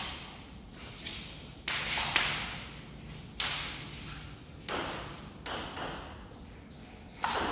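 Table tennis ball struck and bouncing on paddle and table a handful of times: sharp clicks about a second apart, each trailing an echo off the hall's bare walls and floor.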